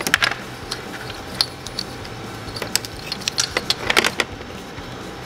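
Small plastic parts and wires clicking and rattling as hands work an LED headlight bulb's pass-through wiring harness and its plastic dust cover. The clicks come irregularly, with a cluster right at the start and another about four seconds in.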